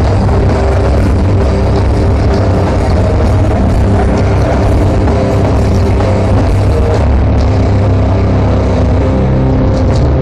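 Grindcore band playing live through a large stage PA, with distorted electric guitar, bass and drums, loud and unbroken throughout, heard from within the crowd.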